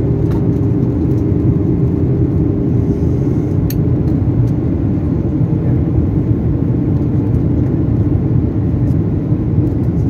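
Airliner cabin noise heard from a window seat over the wing during descent with the flaps extended: jet engines and rushing air make a loud, even, low drone.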